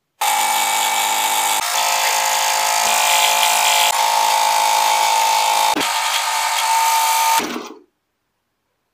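Electric scroll saw running and cutting a wooden board along a paper pattern: a steady motor and blade noise with a constant whine. It stops near the end.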